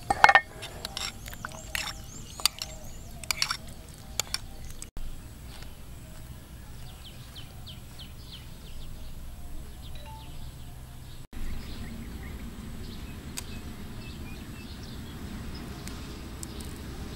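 A metal spoon clinking against a bowl of dipping sauce in a series of sharp clicks with a short ring, the loudest just after the start, over the first four seconds or so. Then a steady outdoor background with faint bird chirps and a low steady noise.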